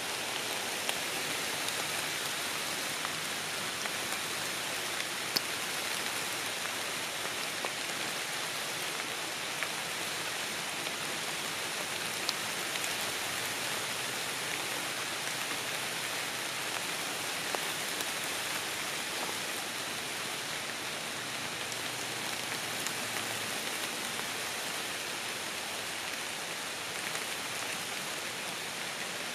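Light rain falling on forest leaves: a steady, even hiss of drops, with now and then a single nearer drop ticking sharply.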